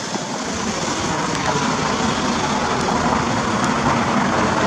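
Road traffic noise from a vehicle on the street, growing steadily louder as it draws near.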